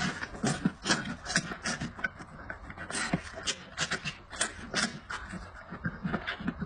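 Close-miked eating sounds: wet smacking, chewing and sucking as meat is gnawed off a goat rib bone, in an irregular run of sharp clicks several times a second.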